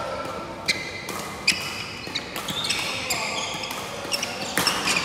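Badminton rally: sharp clicks of rackets striking the shuttlecock, the two loudest about 0.7 and 1.5 seconds in, mixed with short high squeaks of court shoes on the wooden floor.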